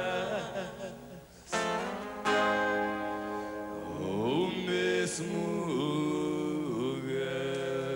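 A young male voice singing long held notes that slide up and down, over acoustic guitar accompaniment, in a sertanejo duo's live performance.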